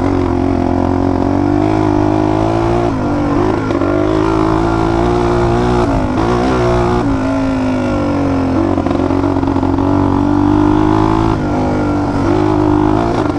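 Honda XLX 250R's single-cylinder four-stroke engine pulling the bike along a dirt track, its note rising and falling as the throttle is worked.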